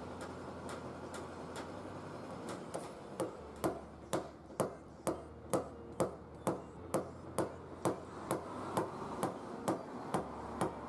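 Paintless dent repair tap-down on a Suzuki Wagon R Smile tailgate: a small hammer striking the panel in a steady rhythm of about two light taps a second, louder from a few seconds in, tapping down the high spots around the dent to level it.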